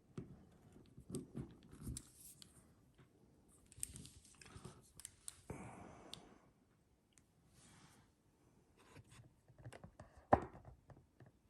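Faint small metal clicks and scrapes of a hook pick and tension wrench working in a Master Lock Pro Series 6321 padlock, with one sharper click near the end.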